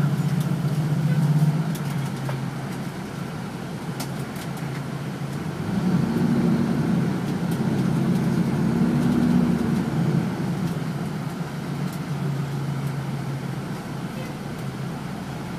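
Fire engine's diesel engine drone heard from inside the cab while driving. It eases off after the first second or two, picks up and rises in pitch about six seconds in, then settles back down.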